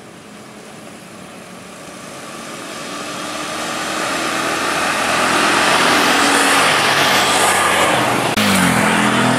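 Road traffic of small motorcycles and scooters passing, fading in and growing louder over the first six seconds. Near the end the sound changes abruptly and a motorbike engine passes close, its pitch dropping.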